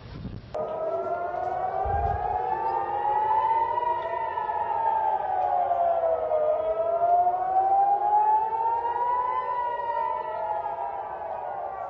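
Civil defense air-raid warning siren wailing, its pitch rising and falling slowly, with two peaks about six seconds apart. It begins abruptly about half a second in.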